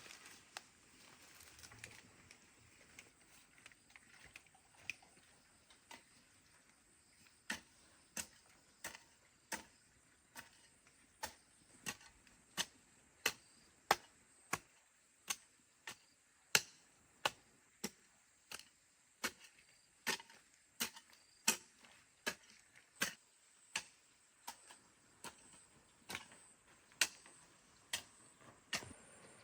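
A steady series of sharp knocks, faint at first and louder after about seven seconds, coming evenly at roughly one and a half a second, like repeated chopping strokes.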